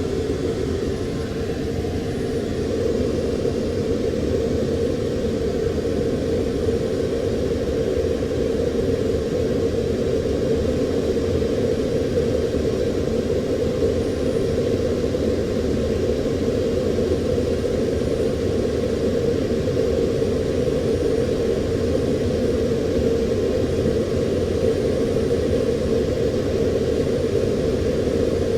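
Steady rumble of a jet aircraft's engine running, holding an even level without rising or falling.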